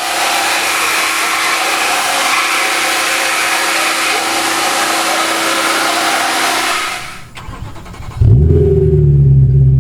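BMW M3's S65 V8 with Cherrybomb Extreme mufflers: after about seven seconds of a steady rushing noise, the engine catches just past eight seconds and settles into a loud, deep idle.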